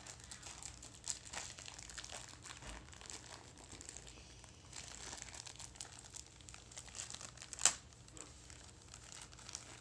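Plastic toy packaging crinkling and tearing as it is opened by hand, with one sharp snap late on.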